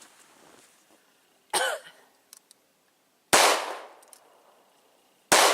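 Two loud 9 mm pistol shots about two seconds apart, each with a short fading echo, after a quieter sharp sound about a second and a half in.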